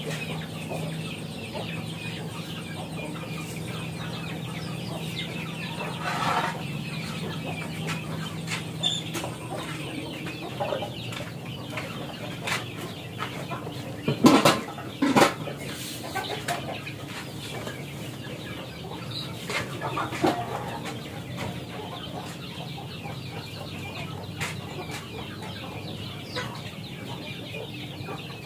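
Chickens clucking in the background, with scattered small clicks of kitchen work. Two loud, sharp knocks come about halfway through, as of a pot or utensil striking the stove.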